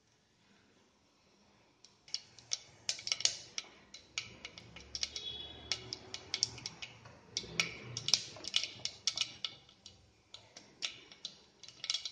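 Mustard seeds popping and spluttering in hot oil in the bottom of a pressure cooker. This is the tempering stage, which shows that the oil is hot. Sharp, irregular pops begin about two seconds in and keep coming, several a second.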